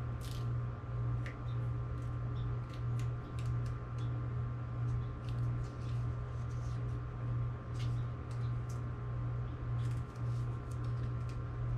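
Scattered light clicks and taps from hands working a Shimano XT M8020 hydraulic brake lever as it is squeezed during a brake bleed, over a steady low hum.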